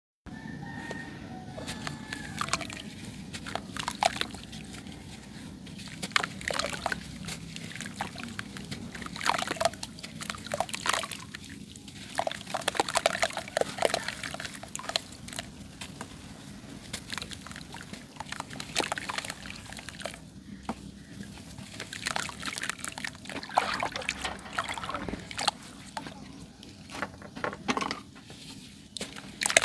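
Clumps of yellow sand crumbling, with many irregular crunches and crackles.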